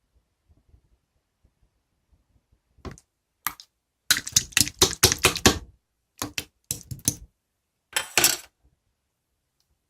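Rapid clattering clicks and knocks in several bursts, the longest run lasting about a second and a half.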